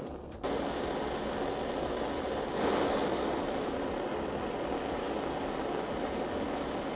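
Handheld gas brazing torch burning steadily, a continuous rushing hiss of flame that comes in abruptly about half a second in. The flame is heating small metal parts to brazing temperature while brazing rod is fed in.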